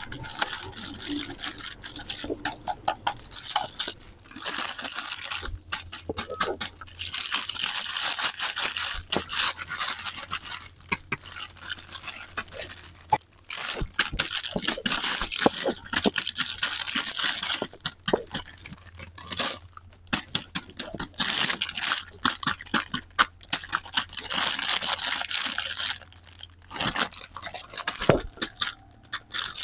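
Plastic toy packaging crinkling and rustling in bursts of a second or a few seconds, with short pauses and scattered clicks between them.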